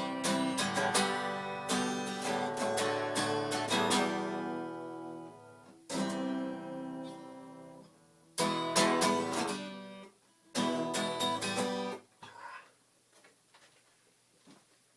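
Acoustic guitar strummed steadily, then three separate chords struck a couple of seconds apart and left to ring out, the closing chords of a short self-written song.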